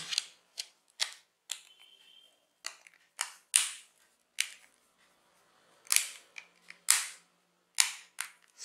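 The plastic back cover of a Lava Spark i7 keypad phone snapping into place: about fifteen sharp plastic clicks at uneven intervals as the cover's clips are pressed home around its edges.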